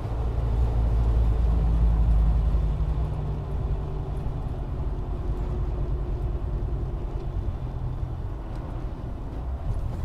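Car engine and tyre noise at highway speed, heard from inside the cabin: a steady low rumble that eases slightly after the first few seconds.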